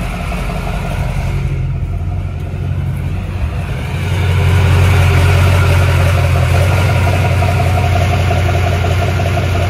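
Duramax diesel race truck's engine running at low speed as the truck creeps into an enclosed trailer, getting louder about four seconds in.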